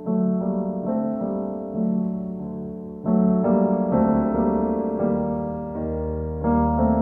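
Piano music playing slow, gently ringing chords, a new chord struck about every second.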